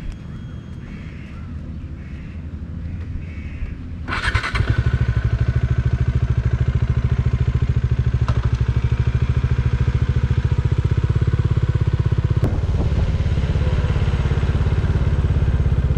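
Motorcycle engine, quieter at first, comes in with a sudden loud burst about four seconds in. It then runs loudly and steadily with an even, rapid firing beat as the bike is ridden.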